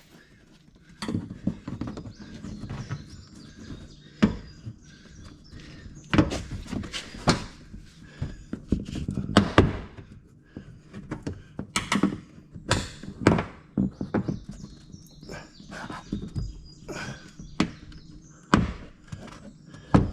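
Plastic inner fender liner being pushed and worked into place behind a pickup's front bumper by hand, making a run of irregular thunks and knocks as it is popped back in.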